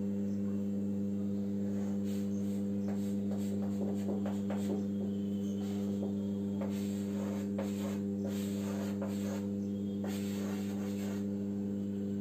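Chalk scratching and tapping on a chalkboard in quick short strokes as lines are drawn, in clusters with a pause in the middle. Under it runs a steady electrical hum, louder than the chalk.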